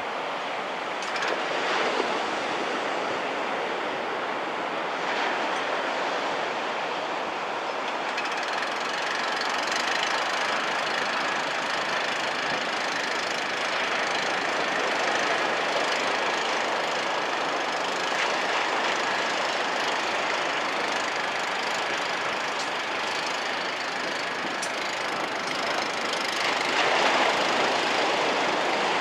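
Small waves breaking and washing up a sandy beach in a steady surf hiss, swelling now and then as a set comes in.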